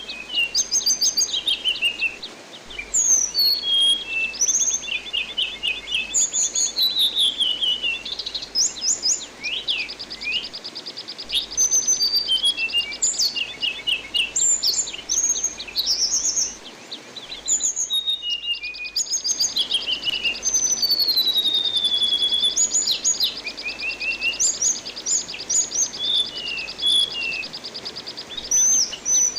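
Anis binbin thrush singing a rapid run of varied whistles, chirps and down-slurred notes, with two long even buzzing trills, over a steady rush of running water.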